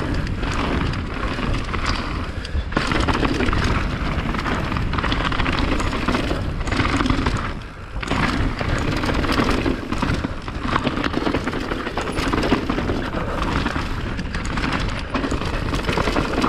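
Mountain bike descending a dirt forest trail: tyres rolling and crunching over dirt, leaves and rocks, with rapid knocks and rattles from the bike over bumps and a constant low wind rumble on the camera's microphone. The noise eases briefly about eight seconds in.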